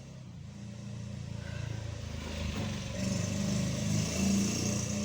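A motor vehicle engine running close by, growing louder as it approaches and peaking about four seconds in.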